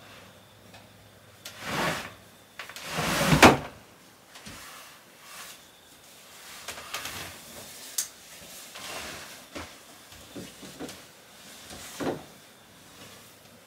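Sliding closet door being pushed open with two rasping slides, the second and louder about three seconds in. Then softer rustling and a few light knocks as folded bedding is handled and pulled from the closet.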